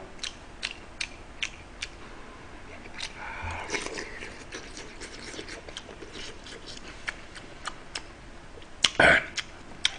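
Close-up eating sounds: a person chewing and sipping stew broth from a spoon, with frequent sharp clicks and a louder mouth noise about nine seconds in.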